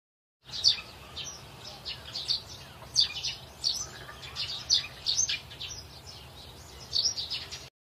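Birds chirping: many short, high calls in quick succession over a faint steady hum. The sound starts about half a second in and cuts off suddenly near the end.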